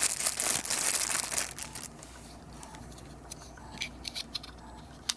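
Packaging crinkling and rustling as unboxed items are handled for about two seconds, then a scattering of light clicks and taps.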